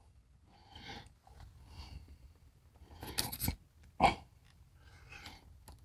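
Faint handling noises of a TV antenna cable being worked by hand, rustling, with a few small sharp clicks, a short cluster about three seconds in and one more about a second later.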